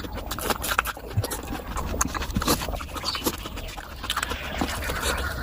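Close-miked chewing and wet lip-smacking of someone eating mutton fat curry with rice: a steady run of quick wet mouth clicks and smacks.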